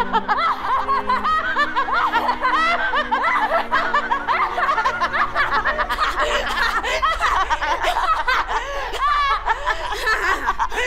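Two women laughing loudly together in a long, theatrical villain's cackle that keeps going without a break.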